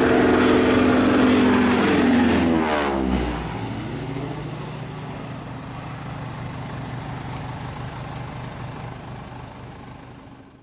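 A T-6 Texan's radial engine and propeller making a low pass: loud as it approaches, the pitch dropping sharply two to three seconds in as it goes by, then fading away as it flies off. The sound cuts off near the end.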